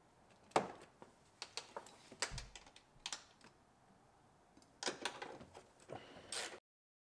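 Ratchet with a 10 mm socket working a nut down onto a stud of the intake heat shield. It gives scattered metallic clicks and clinks, with a quick cluster of clicks about five seconds in.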